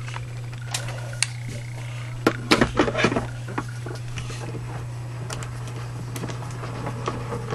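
Evolution Advanced manual die-cutting machine being hand-cranked, feeding a die-and-plate sandwich through its rollers with little noise of its own. A cluster of plastic clicks and knocks comes about two to three seconds in, with a few lighter ticks later, over a steady low hum.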